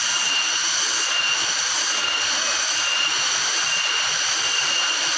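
Steady roar of falling water from a waterfall, even and unbroken, with a faint steady high tone over it.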